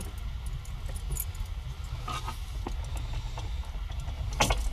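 Pickup truck's engine running with a steady low rumble, heard from inside the cab, with light jingling and small rattles and a louder clatter near the end.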